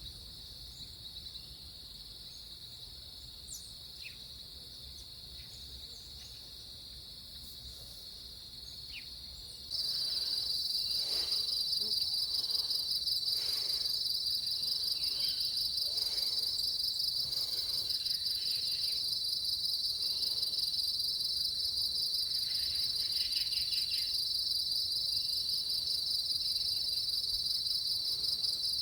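Insects chirring in a steady, high, unbroken trill. About ten seconds in, a much louder, closer trill takes over and carries on steadily.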